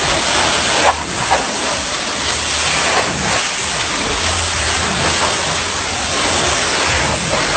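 High-pressure washer spray hissing steadily against a truck, with a low machine hum underneath.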